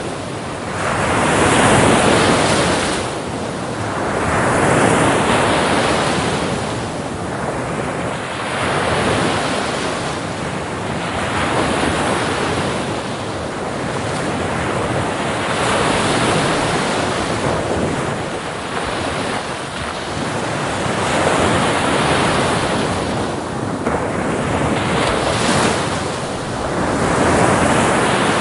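Sea waves breaking on a shore: a continuous rush of surf that swells and eases every two to three seconds as each wave comes in.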